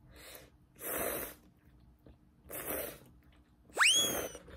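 A person slurping ramen noodles four times, each a short hissing suck of air. The last slurp is the loudest and carries a squeaky whistle that sweeps sharply up and then holds.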